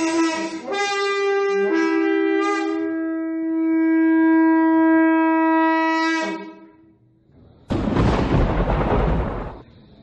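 Conch shell blown in a long held note that steps down in pitch once early on and then holds steady for several seconds. After a short gap comes a sudden noisy crash that dies away over about two seconds.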